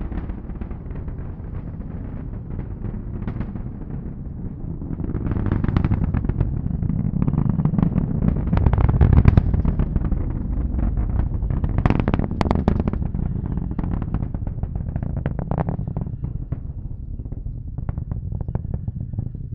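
Falcon 9 rocket's nine Merlin engines at full thrust: a deep rumble shot through with sharp crackling. It swells about five seconds in, is loudest around the middle, then eases off as the rocket climbs away.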